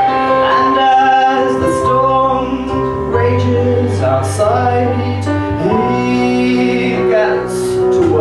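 Music: a song sung live over instrumental accompaniment, with held notes and a steady bass line.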